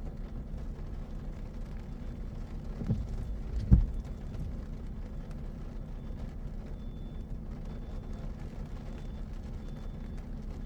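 Car driving through the city, its low road and engine rumble steady. About three seconds in come two thumps less than a second apart, the second louder.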